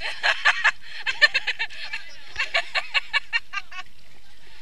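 People laughing in quick bursts of rapid 'ha-ha' pulses, three runs of them over a steady background hiss.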